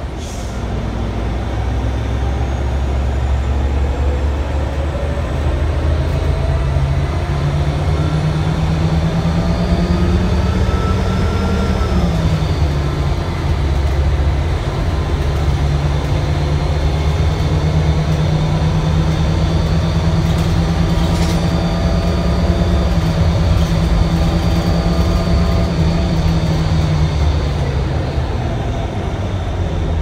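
Cabin sound of a Blue Bird Ultra LF CNG bus under way, its Cummins Westport B Gas Plus natural-gas engine and Allison B300R automatic transmission running with a low hum and a whine that rises in pitch as the bus accelerates. The pitch drops suddenly at a gear shift partway through, then holds steady while cruising and eases off near the end.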